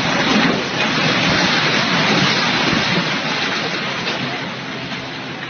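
Concrete grandstand collapsing under a demolition excavator: a loud, continuous crash and rumble of falling concrete and rubble that swells about half a second in and slowly dies away over the last couple of seconds.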